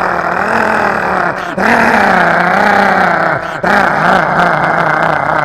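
A man imitating a three-wheeler tempo's engine running, with his voice: a continuous throaty drone that wavers in pitch. It breaks off briefly about a second and a half in and again about three and a half seconds in.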